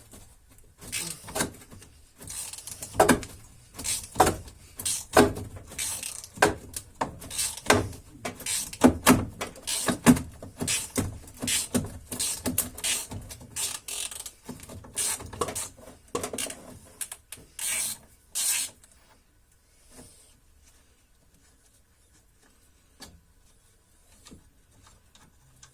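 Hand tools undoing the stabilizer link nut: irregular metallic clicks and scrapes of a wrench and socket on the bolt, several a second, stopping about two-thirds of the way through, with only a few faint ticks after that.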